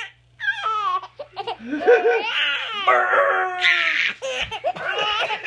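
A baby laughing hard in repeated high-pitched bursts that start after a short pause.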